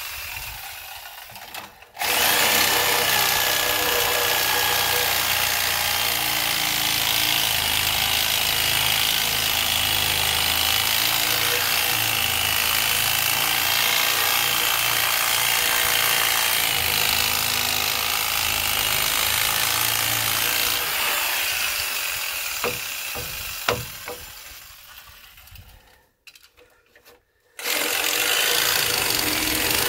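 Corded reciprocating saw cutting through the end of a pressure-treated wooden post, shaping it to a point. It starts suddenly about two seconds in and runs steadily, dies away and stops briefly near the end, then starts cutting again.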